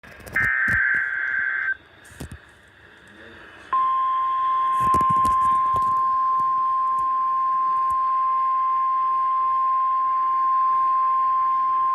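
NOAA Weather Radio Emergency Alert System broadcast. A short burst of data tones, the digital SAME alert header, comes first. About four seconds in, the steady single-pitch 1050 Hz warning alarm tone starts and holds, marking an alert about to be read. A few static clicks of radio reception come through.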